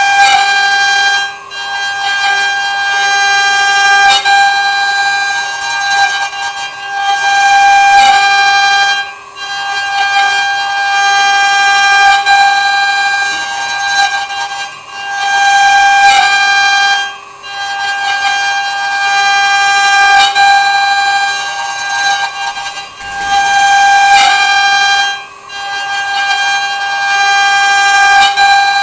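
CNC wood router running: a steady, high whine from the spindle that holds one pitch, briefly dipping in loudness every few seconds.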